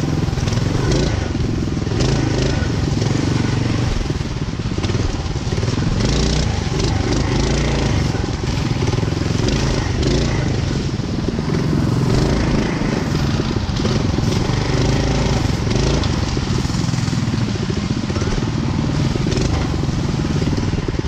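Small single-cylinder mini bike engine running under throttle off-road, with dry leaves crunching under the tires.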